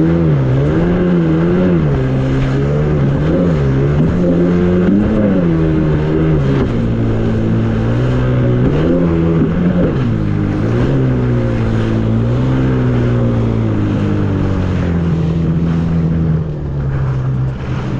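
Jet ski engine running on the water, its pitch rising and falling again and again as the throttle is worked, then settling to a steadier, lower note in the second half, with wind and water rushing underneath.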